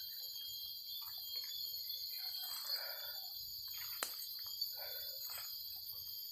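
Steady high-pitched drone of forest insects, with irregular rustling and crunching of footsteps through dry bamboo leaf litter and a single sharp click about four seconds in.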